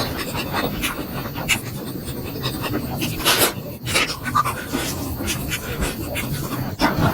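Close-miked chewing and mouth sounds of a person eating momos (steamed dumplings), with irregular sharp smacks throughout.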